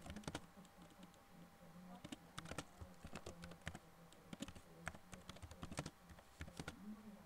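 Computer keyboard being typed on at an uneven, unhurried pace, single key clicks with short pauses between them, faint, over a steady low hum.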